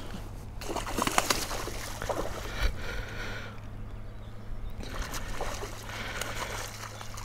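Water splashing and sloshing beside a kayak as a hooked fish thrashes at the surface while it is played in, with a few sharp knocks of gear against the hull.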